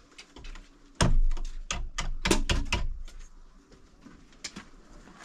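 A quick, irregular run of loud wooden knocks and rattles from a plank door being handled, starting about a second in and lasting about two seconds before tapering off.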